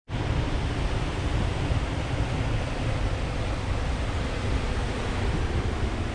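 Ocean surf washing steadily onto a rocky beach, with wind rumbling on the microphone.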